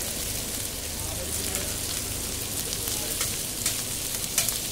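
Chopped onion and tomato sizzling on a large, hot, flat street-food griddle (tawa): a steady hiss with a few sharp spitting pops in the second half.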